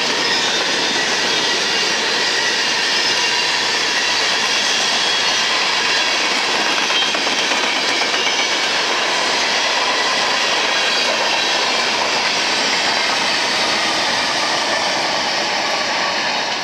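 Empty coal hopper cars of a fast freight train rolling past: a steady loud rush and clatter of steel wheels on rail, with faint high-pitched wheel squeal running through it.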